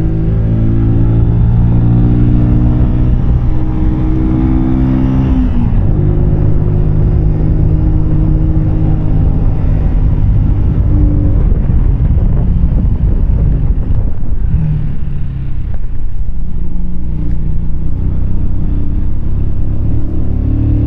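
Keeway K-Light 125's small V-twin engine running while the motorcycle is ridden, heard from the rider's position with wind noise. The engine note steps through different speeds, drops about five seconds in as the throttle closes, and comes back steady near the end.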